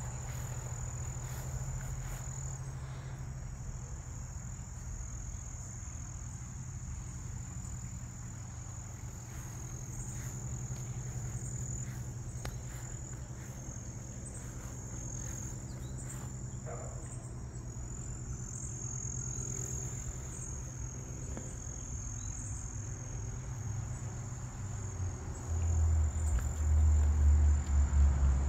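Insects trilling steadily at a high pitch over a low steady hum. About 25 seconds in, a loud low rumble starts and runs to the end.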